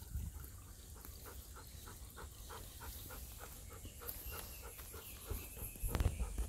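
Golden retriever lapping water from a shallow stream, a quick regular run of small laps at about four a second, with a low thud near the end.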